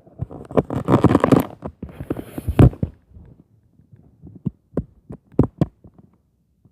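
Thuds and knocks coming down through the ceiling from the apartment above, like stomping and things hitting the floor: a dense run of rapid bangs over the first three seconds, then single, spaced-out thuds.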